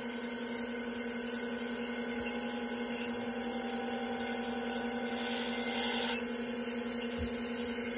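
Seagate ST-225 MFM hard drive spinning in a running PC, a steady whine over a hum, with a short louder hiss about five seconds in.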